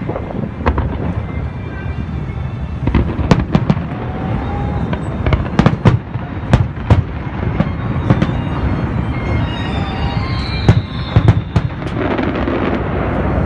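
Fireworks going off: many sharp bangs in irregular quick succession over a steady rumble, with a falling whistle about ten seconds in.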